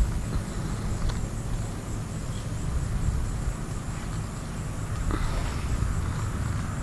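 Muffled hoofbeats of a horse trotting in a sand arena, under a steady low rumble, with faint insects chirping.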